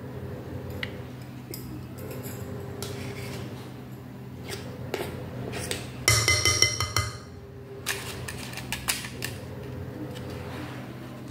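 Metal ladle and spoon clinking and scraping against a glass mixing bowl as cake batter is scooped, with scattered clicks and a quick run of ringing clinks about six seconds in as the loudest part. A steady low hum runs underneath.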